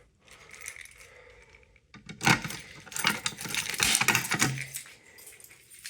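Small metal objects clinking and rattling as they are handled, in a dense run of irregular clicks from about two seconds in, lasting about three seconds.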